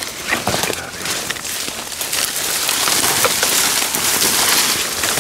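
Close, dense crackling and rustling of dry leaves and brush as someone moves through them, growing louder about two seconds in.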